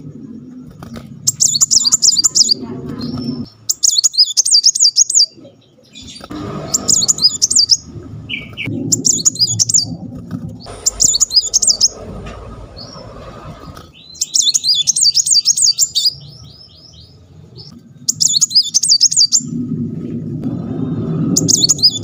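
A caged brown-throated sunbird sings its rapid rolling 'tembakan' song: about eight bursts of fast, high, rattling trills, each one to two seconds long, separated by short pauses. A low rustling noise from the bird moving about the cage runs under the song.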